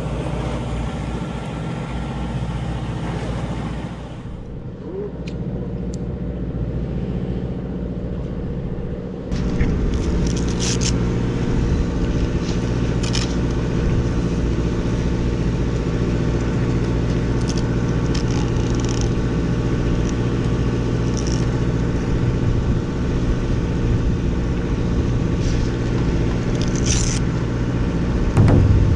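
Fishing boat's engine running steadily with a low drone. A few brief scrapes and clicks of fishing tackle being handled sound over it.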